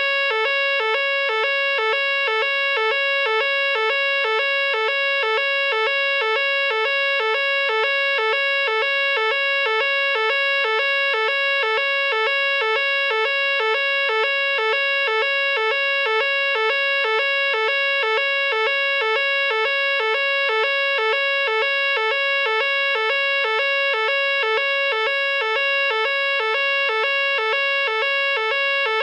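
Nugelec fire alarm sounder going off continuously, an evacuation tone of alternating high and low notes repeating evenly without a break.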